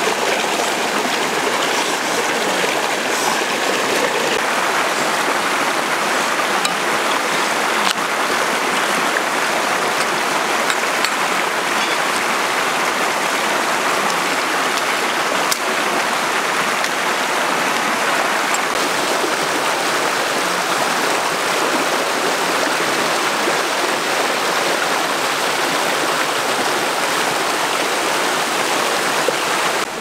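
Shallow stream water running steadily over rocks, an even rushing splash. A few faint knocks stand out now and then.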